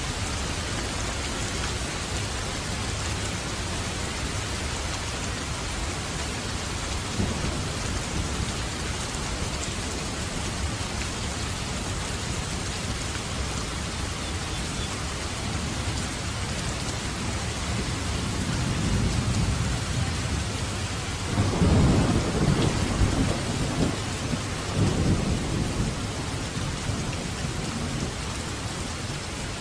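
Steady rain falling, with a low roll of thunder that builds about two-thirds of the way in, breaks into a loud rumble with two swells, then fades away.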